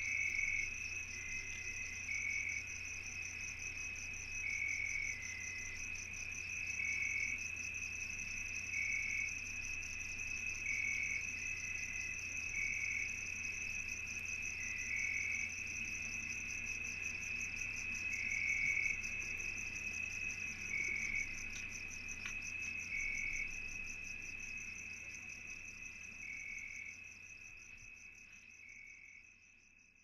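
Crickets chirping in a steady high trill, with a shorter chirp repeating about every two seconds; the chorus fades out over the last few seconds.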